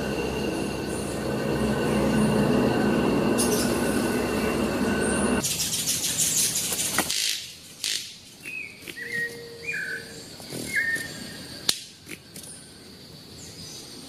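Rainforest-floor sound: a loud, steady drone with a few held high whining tones, which cuts off about five seconds in. Quieter forest follows, with a few sharp snaps and several short, clipped bird calls.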